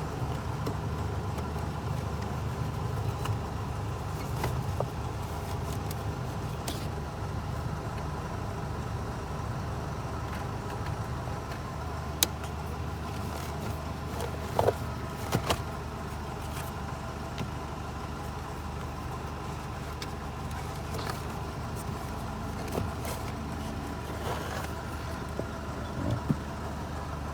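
Steady low mechanical hum with a few sharp clicks and knocks of plastic parts being handled, as when a cabin filter cover is unclipped and the filter pulled.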